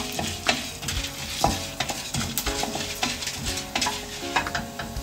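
Wooden spatula stirring and scraping chana dal, urad dal and mustard seeds frying in oil in a stainless steel pan, with a steady sizzle under the repeated scrapes. The dals are being roasted golden on medium flame for a South Indian tempering.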